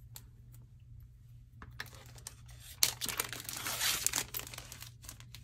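Clear plastic packaging crinkling and tearing as it is cut open with scissors. It starts about two seconds in, after a near-quiet opening, with a sharp click close to the three-second mark.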